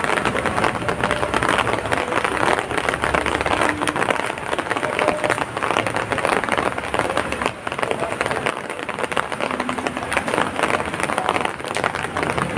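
Heavy rain falling steadily, a dense patter of many drops striking surfaces.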